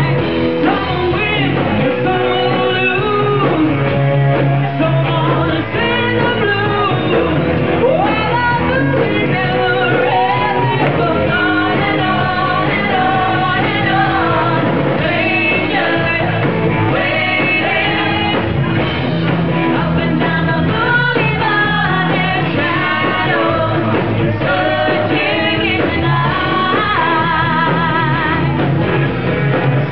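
Live rock band playing, with a man singing lead over electric guitar, bass and drums.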